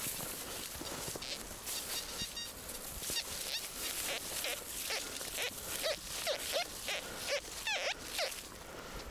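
Irregular crunching in snow, with several short squeaks in the second half.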